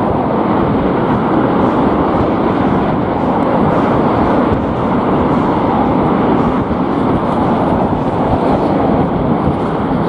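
Strong wind buffeting the microphone: loud, steady noise, with road traffic mixed in underneath.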